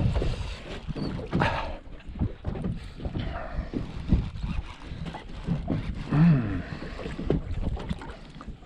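Sounds on the deck of a fishing boat at sea: a steady low rumble with wind on the microphone and scattered knocks and clatters. A brief pitched sound about six seconds in.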